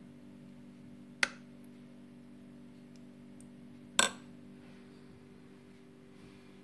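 Two sharp clinks of a spoon against a ceramic dish, about three seconds apart, each with a brief ring, over a steady low hum.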